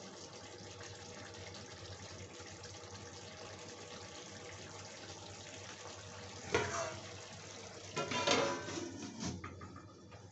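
Steady hiss from the pan of curry on the gas stove, then a steel lid set onto the kadhai with a metal clank about six and a half seconds in and more clattering from eight to nine seconds; the hiss is fainter after that.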